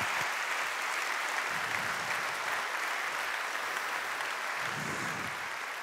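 Audience applauding, a steady wash of clapping that begins to ease off near the end.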